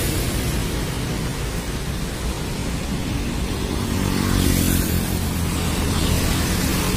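Road traffic running steadily at a junction: engine rumble from waiting and moving vehicles, with motorcycles passing close by about four seconds in.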